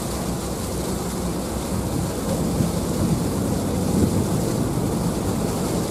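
Ferry engine running with a steady low rumble as the boat pulls away from the pier, with a rushing hiss of wind and water over it.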